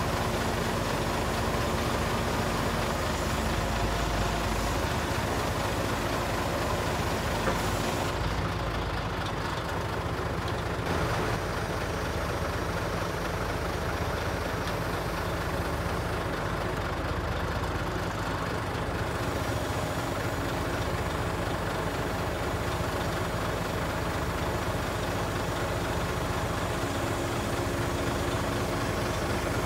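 Scania truck's diesel engine running steadily as a low drone with a few held tones above it, driving the hydraulics of its Hiab 220 C loader crane while the boom is moved.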